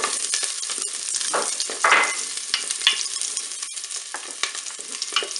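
Onions sizzling in hot olive oil in the nonstick inner pot of a Cookeo multicooker on its browning setting; the sizzle starts abruptly as they go in. A wooden spoon stirs and scrapes among them, with a few short knocks, the strongest about two seconds in.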